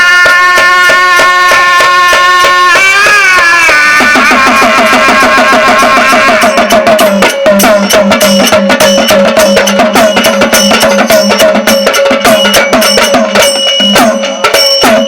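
Devotional bhajan music. A held melodic note sounds for about three seconds and glides near its end, then fast, steady hand-drum strokes play over a sustained drone.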